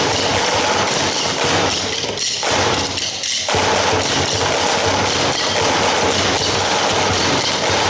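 A large group of drummers beating drumsticks on plastic stacking chairs, a dense mass of stick strikes with two short breaks about two and three seconds in.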